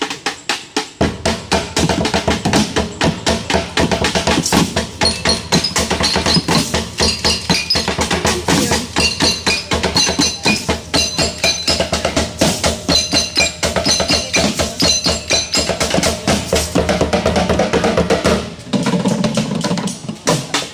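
Improvised found-object percussion: a large plastic barrel beaten with sticks together with metal cans, a basin and plastic bottles being struck, playing a fast, steady beat.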